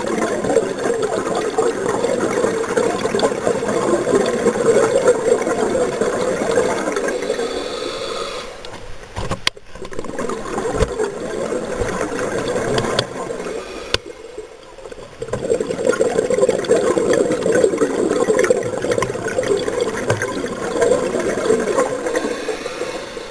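Scuba regulator exhaust bubbles underwater: a loud bubbling rush in two long stretches, with a quieter pause in the middle broken by a few sharp clicks.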